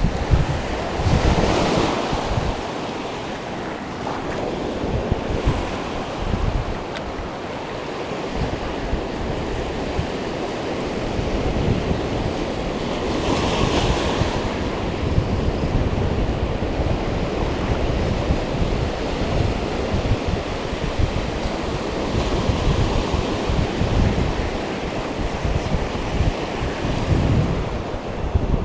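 Ocean surf breaking on a beach, a continuous wash with waves cresting about a second in and again about thirteen seconds in. Wind buffets the microphone with low rumbling gusts.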